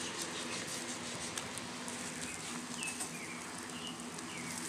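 Chicken sizzling faintly on a wire grill over charcoal embers, with a few short, falling bird chirps about three seconds in.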